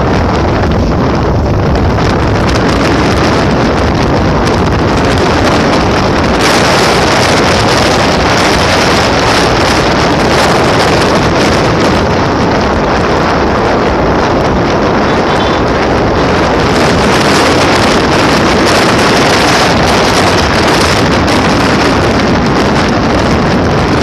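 Wind rushing over a phone microphone on a moving motorcycle, a loud, steady roar with engine and road noise mixed in. It grows louder and harsher about six seconds in.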